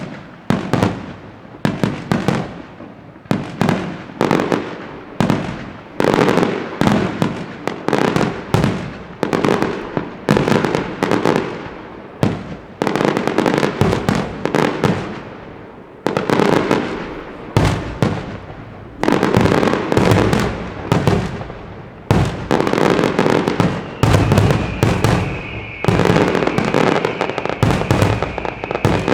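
Fireworks display: a rapid, dense run of bangs from bursting shells and firecrackers, several a second, each trailing off in crackle. In the last five seconds a steady high tone sounds over the bangs.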